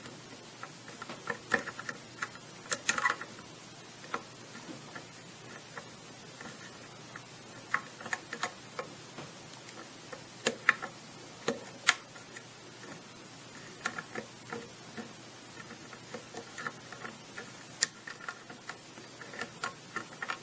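A hook pick probing and lifting the pins inside a six-pin pin-tumbler challenge lock with a Schlage-type keyway, held under a tension wrench. It makes scattered light metallic clicks and ticks, coming in small irregular clusters.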